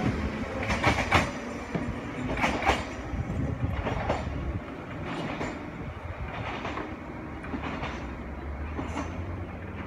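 Echizen Railway electric railcar pulling away, its wheels clacking over the rail joints about once a second under a low running rumble. The clacks are loudest in the first few seconds and fade as the train recedes.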